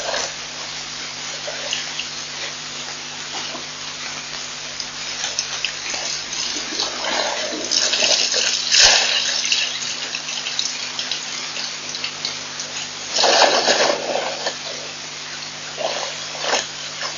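African elephant drinking: water gushes and splashes as it draws water up its trunk and squirts it into its mouth, swelling louder twice, mid-way and about three-quarters through. Under it runs a steady hiss and a low hum.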